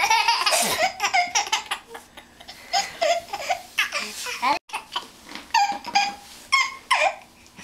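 A baby laughing in repeated short bursts of belly laughter, joined by a young boy laughing. It opens with a breathy blow on a plastic toy train whistle.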